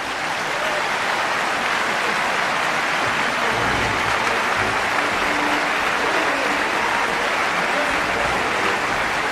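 Large audience applauding, the clapping swelling up at the start and then holding steady and dense.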